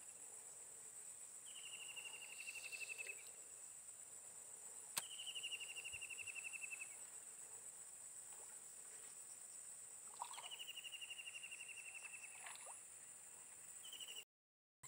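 Faint outdoor insect chorus: a steady high-pitched hum with a pulsing trill, slightly falling in pitch, about a second and a half long and repeated every few seconds. A single sharp click about five seconds in.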